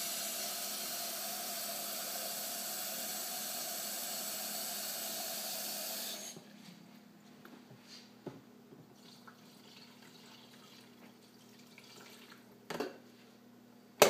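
Kitchen faucet running into a glass coffee carafe, filling it, then shut off about six seconds in. After that come faint handling sounds and a couple of sharp knocks near the end.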